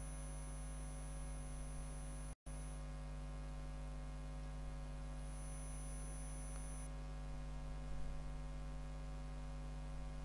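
Steady electrical mains hum with its string of overtones, the background buzz of the recording chain, cutting out for a split second about two seconds in.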